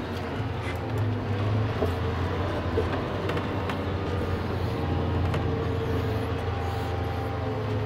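Caterpillar 735 articulated dump truck's diesel engine running steadily, heard from inside the cab as the truck drives down a ramp, with a few light clicks and rattles.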